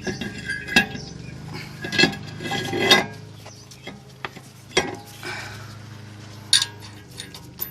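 Metal brake parts clinking and knocking as they are handled and fitted into place: several sharp clinks, a second or so apart, some with a short ring.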